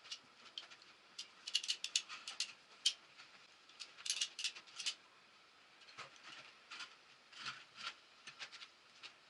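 Irregular light clicks and taps, bunched in quick clusters.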